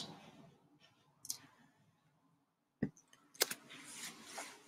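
A few faint, sharp clicks of a computer mouse, spaced apart, with a soft rustle after the last one.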